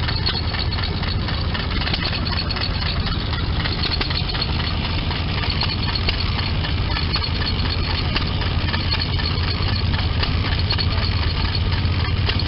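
Antique circular knitting machine running at speed, a steady fast mechanical clatter, over the low steady running of an engine.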